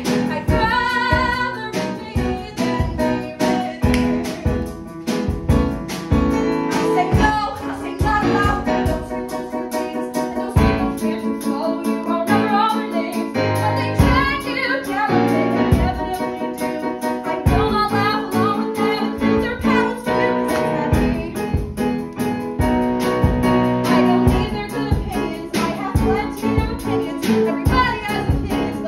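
A woman singing a musical-theatre song into a handheld microphone over instrumental accompaniment with a steady beat.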